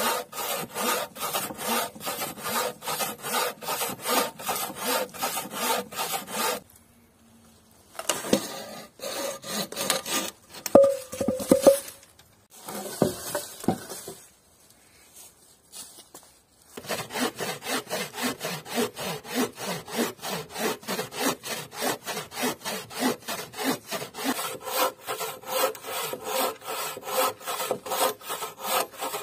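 A homemade wooden-framed bow saw cutting through a log in a quick, even rhythm of push and pull strokes, with the metal blade rasping in the wood. In the middle the sawing stops for a spell of rustling and a few knocks, then resumes about 17 seconds in.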